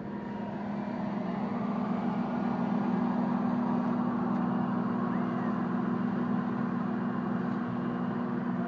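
Heavy diesel road-construction machinery running: a steady, droning engine hum that grows louder over the first couple of seconds and then holds.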